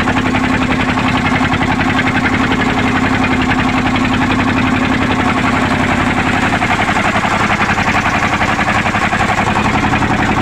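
Engine of a small wooden fishing boat running steadily under way, with a rapid, even beat.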